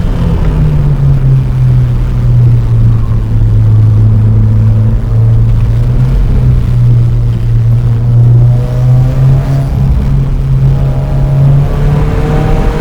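Subaru WRX's 2.0 turbocharged flat-four engine and exhaust heard from inside the car while driving: a steady low drone at nearly constant revs, the CVT holding the engine speed. The note climbs again near the end as the car accelerates.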